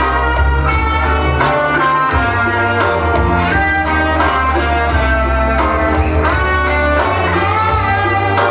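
Instrumental introduction of a lyrical pop-rock ballad: a guitar melody over sustained bass notes and a steady drum beat.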